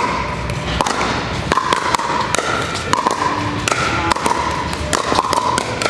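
A pickleball rally: irregular sharp pops of paddles hitting the hollow plastic ball and the ball bouncing on the hard court floor. Hits from several games at once overlap.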